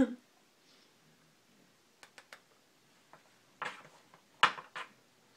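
A cat chewing on an electrical cord: scattered small clicks and taps of teeth on the cord, with the loudest bite about four and a half seconds in.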